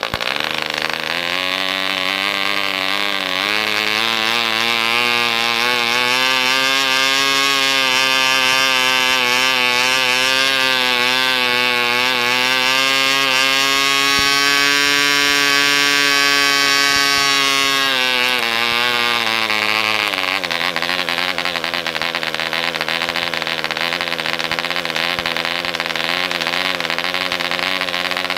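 Jaskolka Mk II 2.5 cc model diesel engine running at high speed on a test stand, with a steady, loud buzz. Its pitch climbs over the first few seconds as the compression screw on the head is turned, holds high, then drops to a lower, steadier speed about 18 to 20 seconds in.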